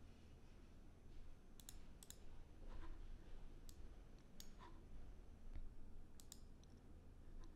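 Computer mouse clicks: scattered sharp clicks, several in quick pairs, over a faint low hum.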